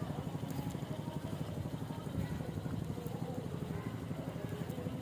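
Small ATV engine running steadily with a low, even rumble.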